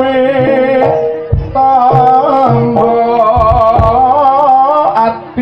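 Live East Javanese jaranan music: a held, wavering melody line rides over regular low kendang drum strokes and a steady sustained note.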